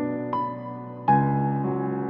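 Instrumental intro of a song: slow, soft keyboard chords, each struck and left to fade. A higher note comes in early, and a louder new chord is struck about a second in.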